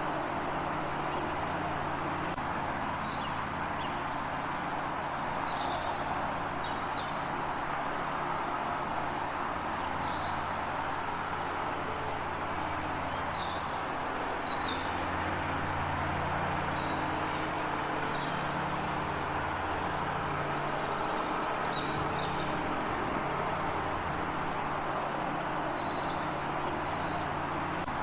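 Birds giving many short, high chirps, scattered throughout, over a steady rushing noise with a low hum underneath.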